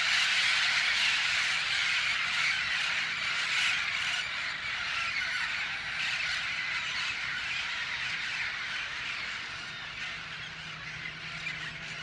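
A flock of a couple hundred wild parrots squawking together in a dense, continuous chorus as they fly overhead, fading gradually as the flock moves off.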